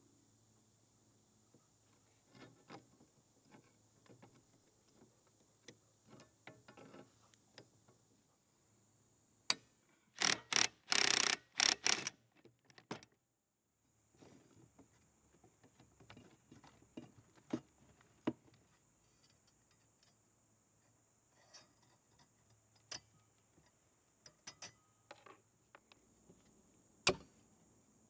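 Scattered metal clicks and clinks of locking pliers and hand tools on the rusty parts of a Manley mechanical floor jack being taken apart. A quick run of loud sharp clicks comes about ten to twelve seconds in, and a steady faint high insect drone sits behind it all.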